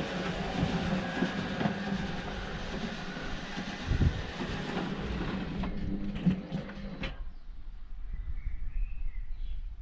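A steady machine running with scattered knocks and rattles, cutting off abruptly about seven seconds in; faint bird chirps follow.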